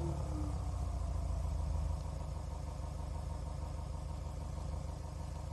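Homemade optical engine-sound generator imitating a Subaru EJ20 flat-four with equal-length exhaust, as heard from inside the car: the revs come down and it idles steadily at about 1000 rpm.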